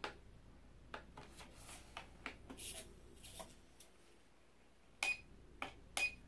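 Plastic clicks and rattles as a drone's remote controller with a phone clamp is handled, and near the end two short, high electronic beeps about a second apart.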